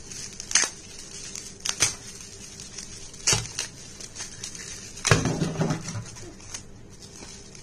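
Clear plastic wrapping crinkling and crackling in short, irregular bursts as it is pulled off a battery by hand.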